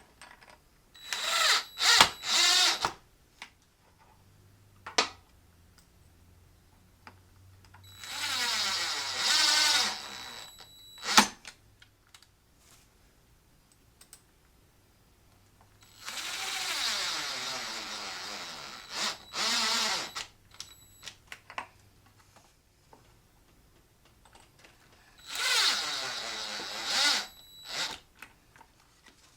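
Power drill running in four short bursts, its pitch sliding as the motor speeds up and slows under load, with small clicks between the bursts.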